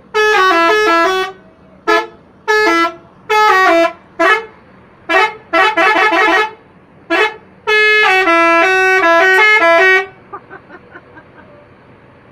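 A bus's multi-tone 'telolet' musical horn playing a stepped melody in about nine toots, some short and some longer, with a long run of changing notes that ends about ten seconds in.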